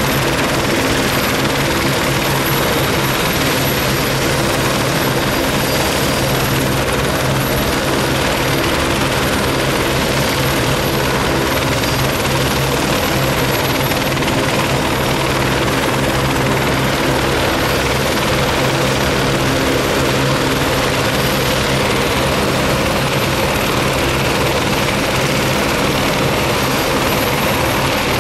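Helicopters running on the ground, with a steady, even noise of engines and rotors that does not change.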